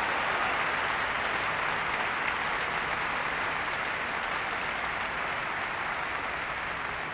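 Large audience applauding steadily, the clapping slowly fading.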